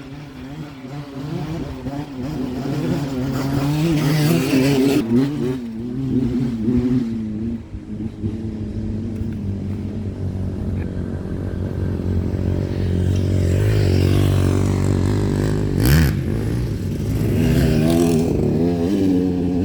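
A motor vehicle engine running, with its pitch rising and falling as it revs, and a single knock about sixteen seconds in.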